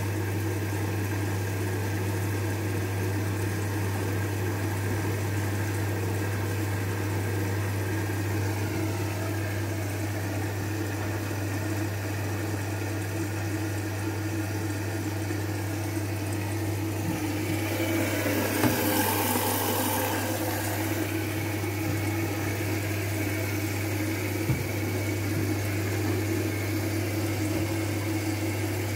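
Front-loading washing machine running a wash cycle: a steady machine hum, with a louder rush of water for a few seconds about two thirds of the way through and a few light knocks as the wet laundry is turned in the drum.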